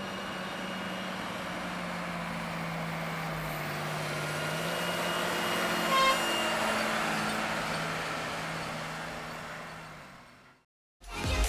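Heavy harvest machinery's diesel engine running steadily, with a short horn toot about halfway through; the sound fades out near the end.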